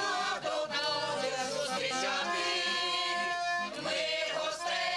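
Village folk choir, mostly women's voices, singing a folk song together with a button accordion, with long held notes in the middle.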